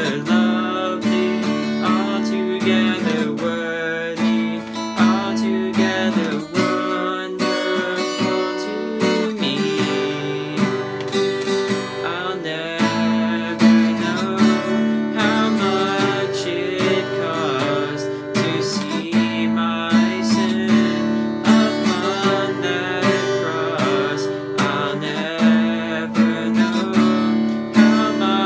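Steel-string acoustic guitar strummed in a steady rhythm, with a young man's voice singing a worship song over it.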